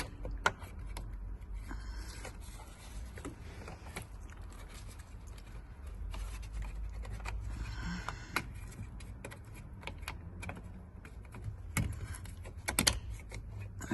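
Scattered small plastic clicks and taps as ignition switch parts are pushed and snapped into place in the steering column, with a louder cluster of clicks near the end, over a low steady hum.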